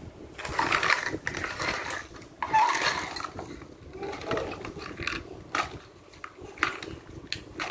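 Spoon or other cutlery clinking and scraping against a dish during a meal: scattered sharp clicks among short noisy scrapes.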